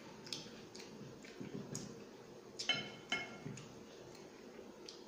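Fingers mixing and scooping biryani rice on a glass plate, with a series of soft clicks and taps against the glass; two taps a little under halfway through are the loudest and ring briefly.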